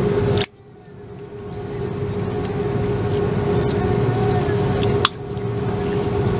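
Airliner cabin noise: a steady engine drone with a constant hum. Twice a click is followed by the sound dropping away abruptly and swelling back over a second or so.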